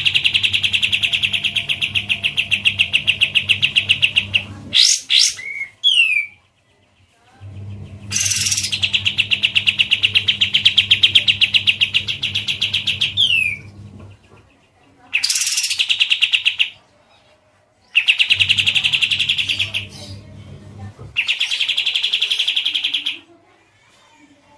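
Songbird 'masteran' training recording: five long, rapid buzzing trills of one to five seconds each, with short gaps between them, and a few quick sweeping whistled notes about five seconds in and again near thirteen seconds. A low hum rises and falls with the trills, as if from the playback device.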